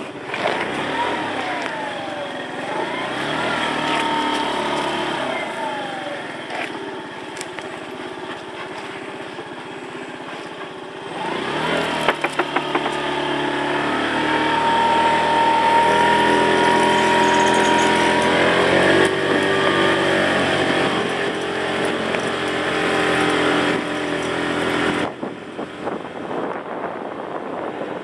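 Small motorbike engine running, its pitch rising and falling with the throttle; it picks up sharply about halfway through and runs louder and steadier before easing off near the end.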